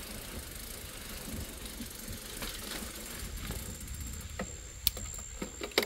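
Bicycle rolling along a road: a low rumble with faint rattles, and a sharp click about five seconds in.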